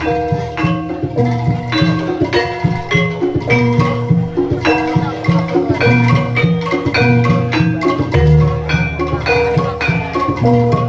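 Javanese gamelan music accompanying a jaranan dance: bronze metallophones play a quick run of struck, ringing notes over a regular drum beat.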